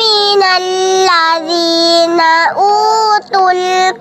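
A child's voice reciting the Qur'an in melodic tilawah chant, holding long pitched notes with gliding, ornamented turns and brief breaks between phrases.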